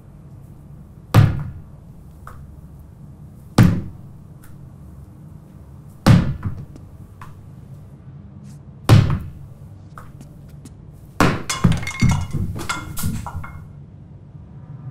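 Four heavy, echoing thuds about two and a half seconds apart, then a rapid flurry of bangs and clatter near the end.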